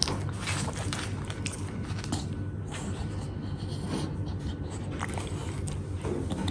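An English bulldog mouthing and biting at an apple slice held out by hand, with scattered short clicks and crunches.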